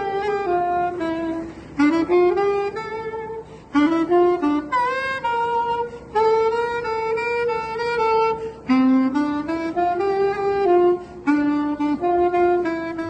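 Saxophone playing a melody in slow phrases, with short breaks between them, as jazz-style music.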